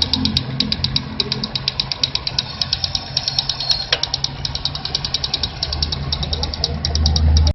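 Car engine idling with a fast, even ticking from the belt-driven accessories, about five or six ticks a second over the engine hum. The noise comes from a drive belt adjusted far too tight. The low hum grows louder near the end.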